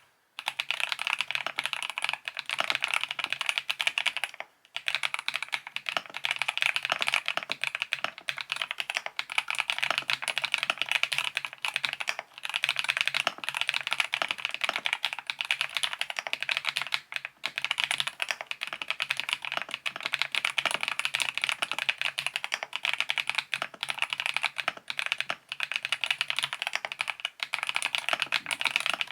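YUNZII B68 mechanical keyboard with a plastic case being typed on in quick, continuous runs of key clicks, broken by a few short pauses.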